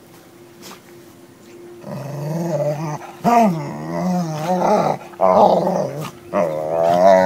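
Dogs play-growling while they wrestle: after a quiet first two seconds, several long growls that rise and fall in pitch, with brief breaks between them.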